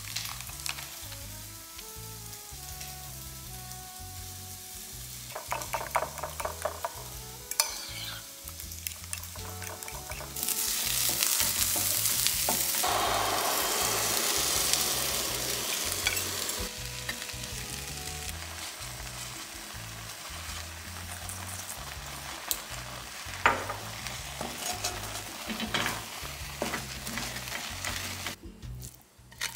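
Eggs are briefly beaten in a ceramic bowl with quick clicks. About ten seconds in, the egg and cottage-cheese mixture hits a hot pan of peppers and onion and sizzles loudly for about six seconds. It then keeps frying with a softer sizzle while a wooden spoon stirs and scrapes it.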